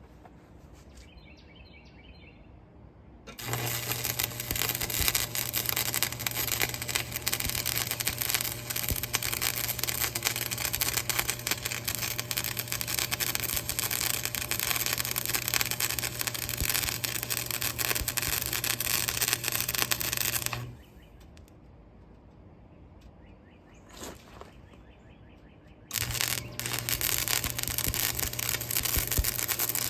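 Stick welder arc crackling with a steady low hum as a bead is run into a ground-out crack in a backhoe bucket. The arc strikes a few seconds in, breaks off for about five seconds, then strikes again near the end.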